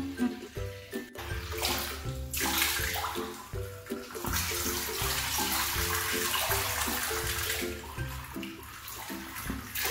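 Water rushing from a hose onto a lathered cat and the tile floor, starting about a second and a half in and stopping near the end, over mellow background music.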